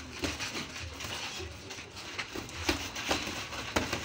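Boxing gloves smacking as punches land during sparring: a string of sharp, irregular slaps, about seven or eight in four seconds.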